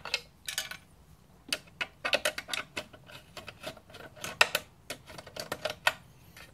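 Small ratchet with a 5 mm socket clicking in short irregular runs as it turns out a coil-pack bolt, with light metal ticks from the tool and the bolt.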